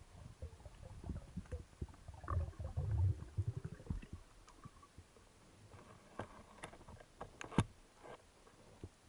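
Underwater noise picked up by a diving camera in its housing: a low, fluttering rumble of water movement over the first few seconds, then a handful of sharp clicks and taps.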